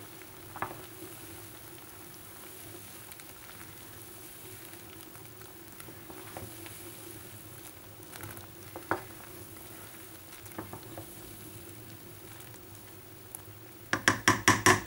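A pot of egg noodles at a rolling boil, a steady bubbling hiss, stirred with a wooden spoon that gives a few soft knocks against the steel pot. Near the end comes a quick run of sharp, loud knocks.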